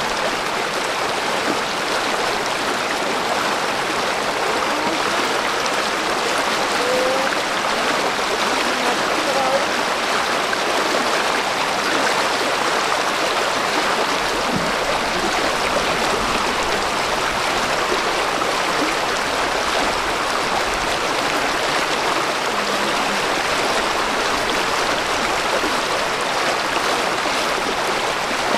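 Shallow, fast-flowing river current rushing and splashing steadily, churning around legs and stakes in the water.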